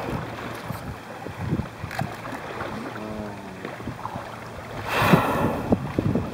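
Water lapping and wind at sea, with a loud breathy whoosh about five seconds in: the blow of a whale exhaling as it surfaces.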